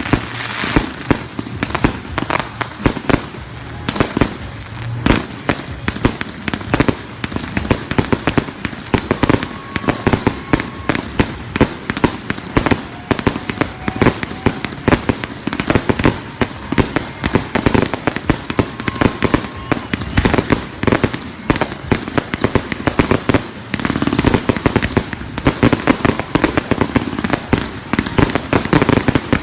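Fireworks going off without a break: a dense, rapid string of bangs and crackles, many per second.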